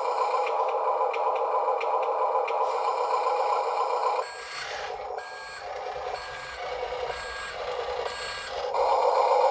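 Huina 1582 RC dump truck's built-in sound module playing a simulated truck engine drone, which drops away about four seconds in to a reversing beeper beeping about once a second while the truck backs up. The engine sound comes back louder near the end.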